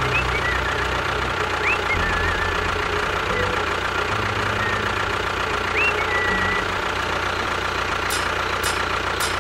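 Tractor engine idling steadily, with a bird chirping twice over it and a few sharp clicks near the end.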